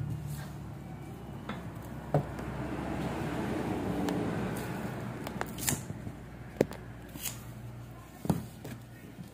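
Banana leaves rustling and crinkling as rice cakes are wrapped and tied by hand, with a few sharp light clicks and taps scattered through.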